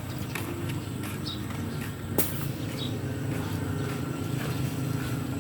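An engine running steadily at a low pitch, with scattered light clicks and one sharp click about two seconds in.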